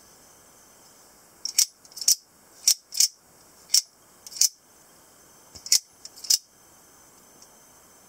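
Out-the-front automatic spring knife firing its blade out and snapping it back into the handle repeatedly under the thumb slider: about eight sharp metallic clicks, some in quick pairs, starting about a second and a half in and stopping past six seconds.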